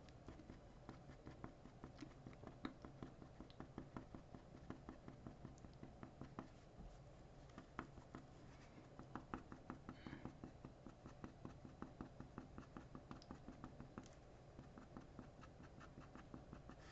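Fine-tip ink pen scratching and tapping on drawing paper in many short, quick strokes, a few a second. Faint.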